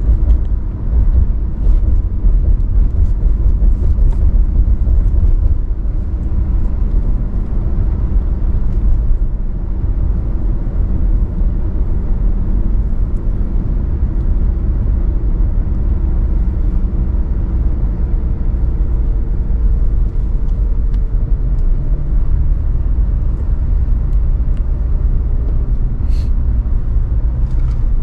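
Steady low road and engine rumble inside the cabin of a moving Mitsubishi.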